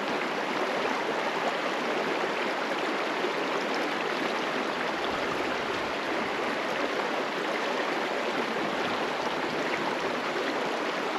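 Steady rushing of creek water pouring through a small concrete irrigation diversion.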